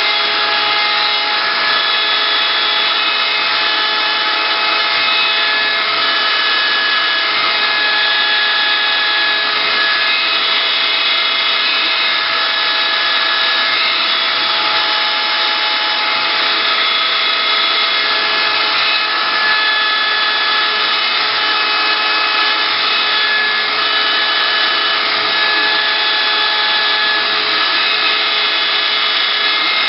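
CNC wood router running and carving, a steady loud spindle and cutter noise with motor tones that shift between pitches every second or two as the axes move.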